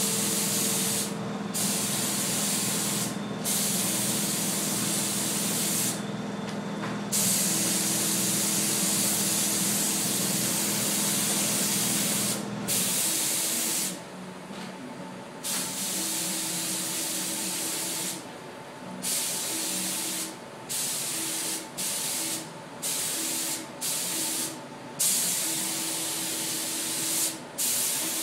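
Gravity-feed paint spray gun hissing in repeated passes, the air cutting off briefly each time the trigger is released, with shorter, quicker bursts in the second half. A low steady hum runs under the hiss and stops about halfway.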